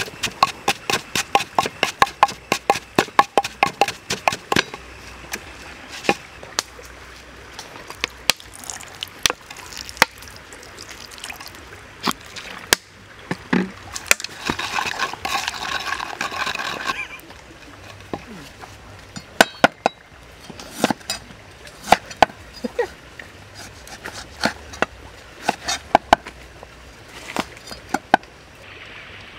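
Wooden pestle pounding in a wooden mortar, grinding fresh chili with salt and seasoning into a chili sauce: fast, even knocks, about four or five a second, for the first few seconds, then slower, irregular strikes. Near the end a knife cuts on a wooden board.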